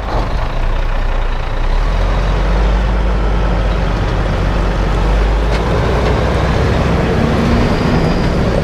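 Heavy truck's diesel engine running steadily, growing slightly louder about two seconds in.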